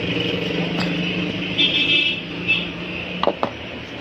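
Steady engine-like background hum, with a few sharp clicks and crinkles of plastic packaging being handled.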